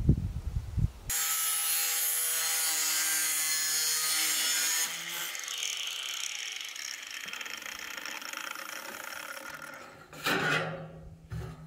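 Angle grinder cutting a corrugated steel sheet. It starts suddenly about a second in with a loud, steady, high-pitched whine, then winds down after about four seconds, its pitch falling slowly as the disc slows. Near the end the loose steel sheet gives a short loud rattle as it is lifted.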